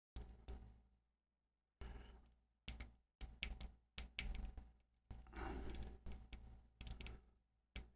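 Lock pick and tension wrench working inside the slider mechanism of an On Guard bicycle U-lock: irregular small metal clicks and scratches, with a longer scratchy stretch about five seconds in.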